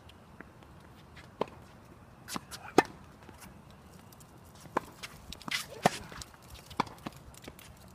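Tennis rally: a ball is struck by racquets and bounces on the court, giving a series of sharp pops about a second apart, the loudest a little under three seconds in. Footsteps can be heard between the shots.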